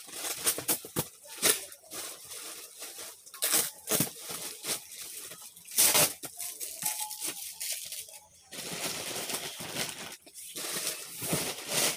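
Plastic sacks and wrapped bundles of clothes rustling and crinkling as they are handled and shifted, with several sharper crackles among them.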